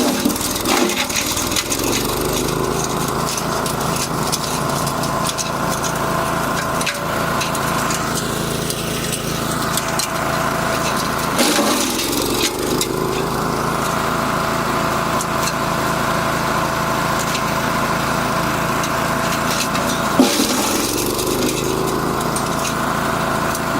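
Wood chipper driven by a 6.5 hp petrol engine running steadily while chipping wood. The engine note dips briefly three times: about a second in, about halfway through and near the end.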